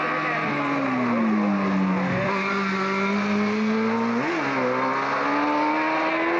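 Rally car engine running hard and steadily, its pitch sagging about a second in, dipping sharply about two seconds in, and rising then falling in a quick blip a little after four seconds.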